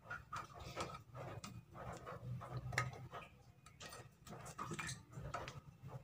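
Faint, irregular light clicks and taps of chillies being handled and dropped into a blender jar.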